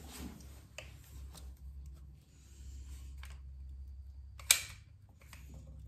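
Manual caulking gun being worked into a wall corner: light clicks and scrapes from the trigger and plunger rod, with one sharp, loud click about four and a half seconds in.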